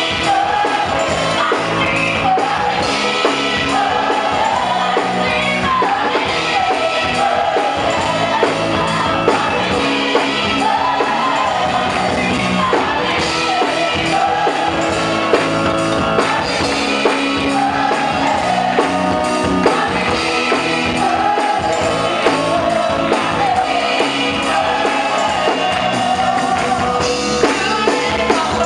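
Live gospel praise-and-worship music: singers backed by a band, with a steady beat.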